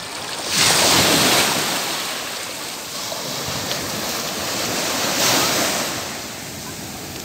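Ocean surf breaking and washing up the beach at the water's edge. A loud surge of breaking wave comes about half a second in and another around five seconds, with the foaming backwash hissing between them.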